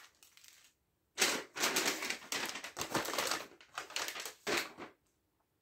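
Crinkling and rustling of paper wrapping and small plastic-wrapped packets being taken out of a box, in several bursts starting about a second in.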